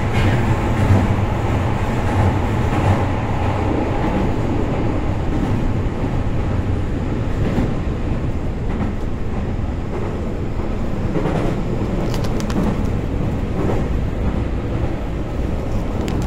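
Kobe Municipal Subway Seishin-Yamate Line train running between stations, heard from inside the car: a steady low rumble of wheels on rail, with a few faint clicks in the second half.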